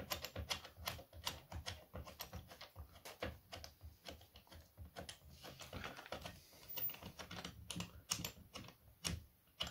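Many quick, irregular clicks and taps of metal parts being handled as a chainsaw attachment's metal mounting plate is fitted against an angle grinder's head.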